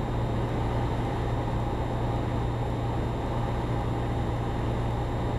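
Cessna 172's piston engine and propeller in flight, a steady low drone heard from inside the cabin while on final approach.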